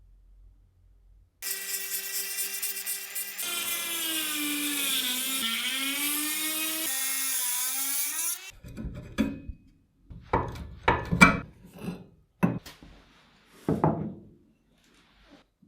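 A power tool's motor runs for about seven seconds, its pitch sagging in the middle as if under load and then picking back up. After it stops comes a series of sharp knocks and clatter of handled parts.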